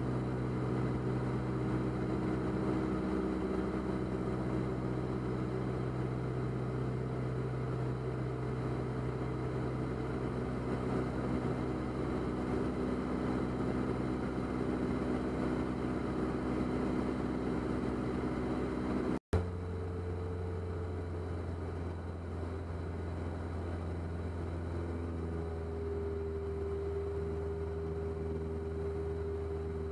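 Steady drone of a Diamond DA40's engine and propeller in cruise, heard from inside the cockpit. About two-thirds of the way through the sound cuts out for an instant with a click, and the drone carries on with a changed tone.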